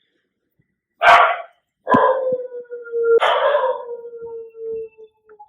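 Puppy barking and howling: one sharp bark, then two barks that each stretch into a long, steady howl. It is the distress of a puppy left alone, calling for attention.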